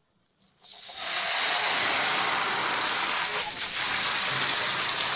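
Crêpe batter sizzling in a hot frying pan, starting about a second in as the batter goes into the pan, then holding as a steady crackling sizzle.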